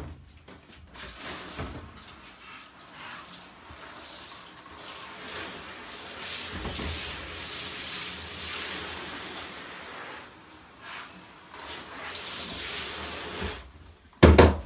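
Water spraying from a handheld shower head onto a tiled shower wall, a steady hiss that starts about a second in and stops shortly before the end. Near the end comes a single loud knock.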